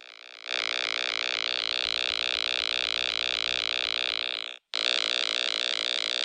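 Electronic sound effect for an air ambulance: a steady buzzing tone that pulses rapidly and evenly. It cuts out for a moment about four and a half seconds in, then resumes.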